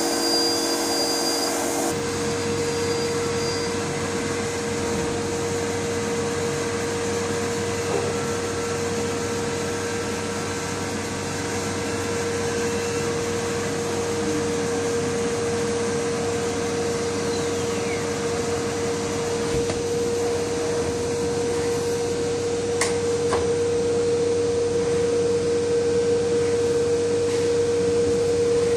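CNC router running steadily: a constant whine over a rushing machine noise, with a couple of faint ticks near the end.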